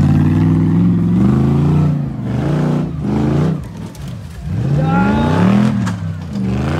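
Off-road trial vehicle's engine revving hard, the revs rising and falling about three times.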